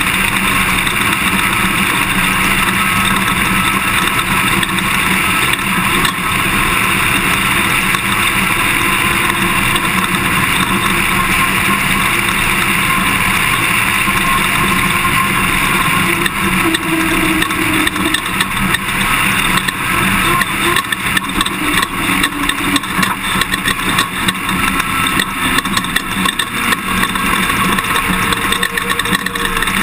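Toyota Tundra pickup driving off-road, heard on board: steady engine and tyre noise with constant small rattles and jolts from the rough ground.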